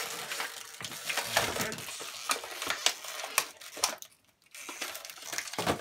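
Clear plastic toy blister packaging being crinkled and worked open by hand: irregular crackles and clicks, with a brief pause about four seconds in.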